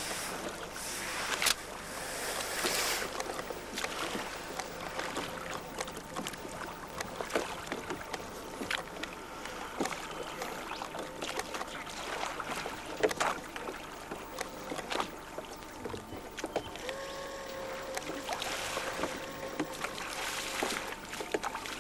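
Sounds aboard a boat on the water: a steady wash of noise with many scattered knocks and clicks, and a faint steady hum late on.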